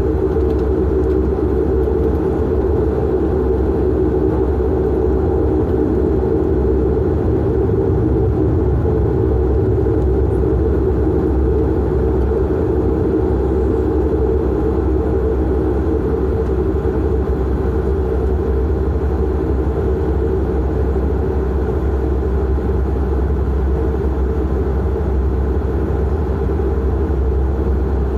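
The Dash 8-400's Pratt & Whitney PW150A turboprop engines and propellers drone steadily, heard from inside the cabin while the aircraft taxis at low power.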